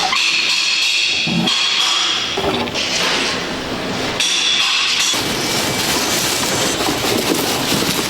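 Background music over metal-workshop noise: knocks in the first half, then a steady harsh noise from about halfway through.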